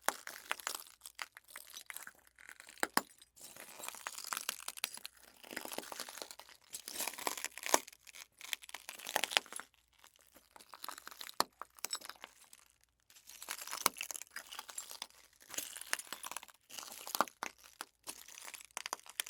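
Shoes walking over broken glass debris, each step crunching and grinding the shards with sharp clinks, with short pauses between steps.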